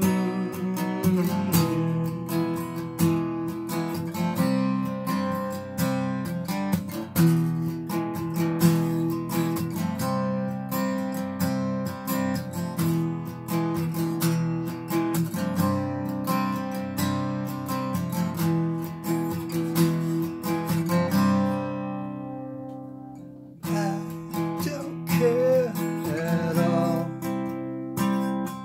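Acoustic guitar strummed in a steady rhythm, an instrumental break between sung verses. About 22 seconds in, a chord is left ringing and fades before the strumming picks up again a second or so later.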